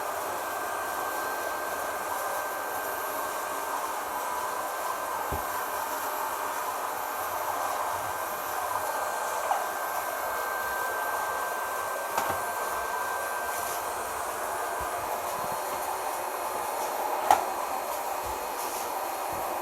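Vacuum cleaner running steadily, a constant noise with a thin whine over it. A few light knocks occur, the sharpest about seventeen seconds in.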